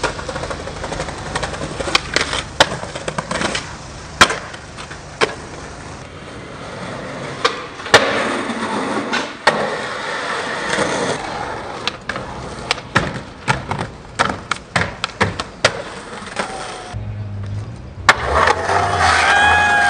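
Skateboards rolling on concrete and paving stones, with many sharp clacks from tail pops, board flips and landings, cut together trick after trick. Near the end a drawn-out voice calls out over the rolling.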